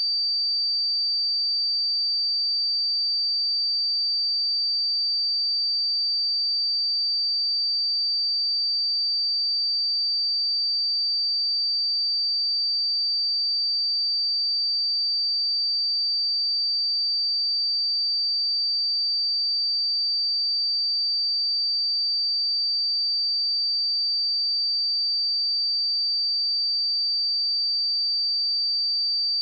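A steady, unbroken high-pitched 4641 Hz sine-wave test tone at a constant level, for checking speakers or headphones.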